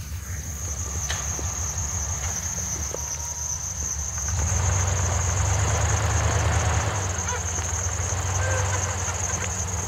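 Off-road Jeeps' engines running at low speed as they crawl through snow toward the listener, a low rumble that gets louder about four and a half seconds in. A steady high whine sounds throughout.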